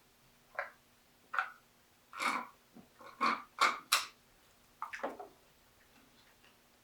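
Close-up eating sounds from someone eating instant ramen: a string of about seven short slurps and mouth noises, the loudest bunched together in the middle.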